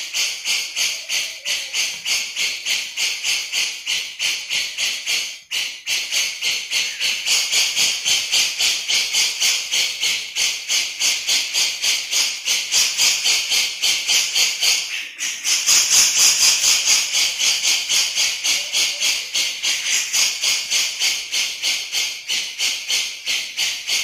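Grey-cheeked bulbul (cucak jenggot) giving its 'besetan' call: a long, fast, steady run of repeated notes at about four a second, broken off briefly twice, about five and fifteen seconds in.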